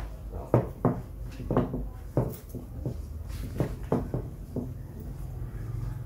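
Irregular short knocks and thumps as a Rottweiler puppy shifts its feet on a raised mesh dog cot with a metal frame while it is rubbed dry with a towel, over a steady low hum.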